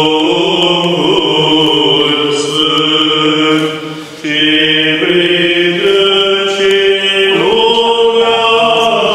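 Orthodox church chant: voices holding long notes over a steady low drone. After a brief dip about four seconds in the notes change, and they shift again a few seconds later.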